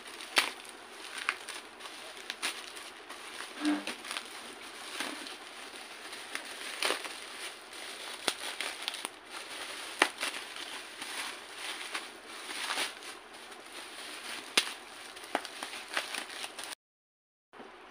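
Plastic bubble wrap crinkling and crackling as it is unwrapped by hand, with many sharp crackles over a steady rustle. The sound drops out for a moment near the end.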